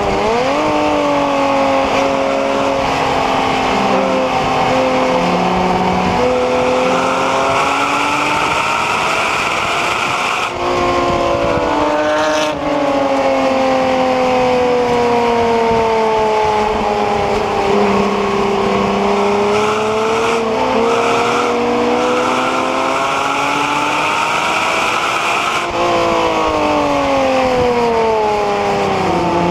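Porsche Cayman 987's 2.9-litre flat-six engine under hard track driving, its pitch rising and falling with throttle and gearchanges. It briefly breaks off twice around a third of the way in, climbs steadily through a long pull, then drops away near the end as the revs come down.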